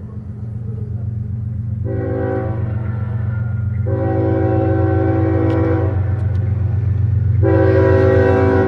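CSX freight train led by two GE Evolution-series (GEVO) diesel locomotives approaching, its engines running with a steady low drone that grows louder. Its horn sounds three times: a short blast about two seconds in, a long blast about four seconds in, and another long blast near the end.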